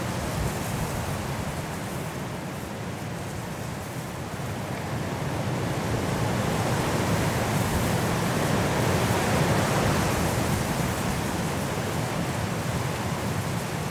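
Strong wind blowing through forest trees in a snowstorm: a steady rushing that swells over a few seconds and eases again.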